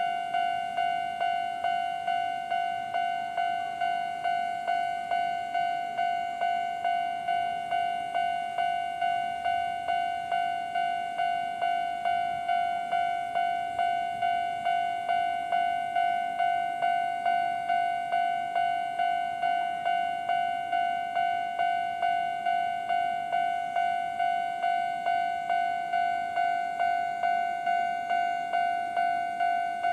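Japanese railway level-crossing warning bell, the older standard electronic type, dinging on one fixed tone at an even, fairly quick pace of about one and a half strikes a second: the crossing's alarm warning that a train is approaching.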